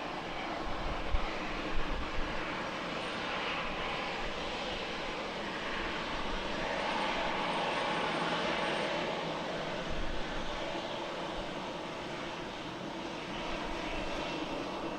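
Boeing 737-900 jet airliner taking off at full power: a steady rushing jet noise that swells to its loudest about seven to nine seconds in, then eases off. A few brief low thumps about a second in.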